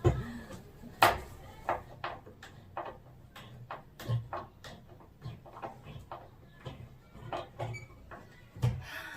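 Irregular knocks and rattles of bed-frame parts being worked loose by hand, a tightly stuck joint being pried and jostled apart. The strongest knocks come about a second in and near the end.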